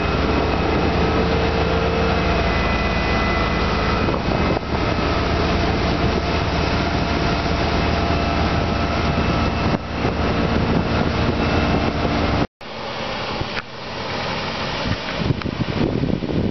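A 1994 Rinker Fiesta Vee 265's engine running steadily at cruising speed with the boat on plane, mixed with the rush of wind and water. About twelve seconds in, the sound cuts off abruptly and gives way to wind buffeting the microphone as the boat planes past.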